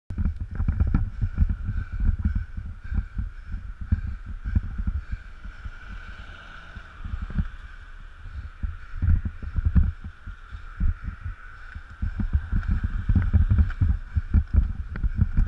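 Wind buffeting the microphone of a bicycle-mounted GoPro while riding: a gusty low rumble, easing off for a few seconds midway, with a faint steady tone above it.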